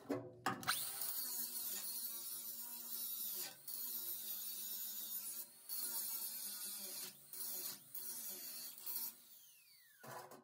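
Angle grinder running with its disc on metal, grinding down burnt-through welds on a truck body's floor: a steady whine with a hiss, broken by a few short gaps. Near the end it winds down with a falling whine and stops.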